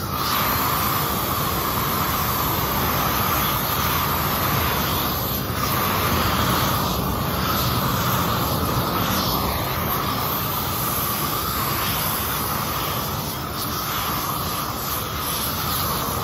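Propane weed-burner torch running at full flame with a loud, steady rushing hiss as it chars wooden boards.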